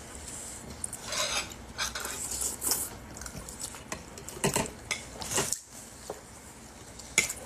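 Spoon scraping and clinking in a soup bowl while eating: a handful of short, separate scrapes about a second apart.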